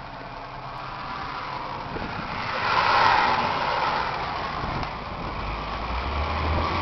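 John Deere 6415 tractor's diesel engine idling, with a steady low hum that strengthens near the end. About three seconds in there is a brief swell of rushing noise.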